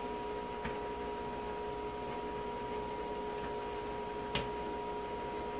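A steady hum made of several steady tones, with a few faint ticks and one sharper metal click about four and a half seconds in, as a long steel hook rod catches the glass kiln's lid.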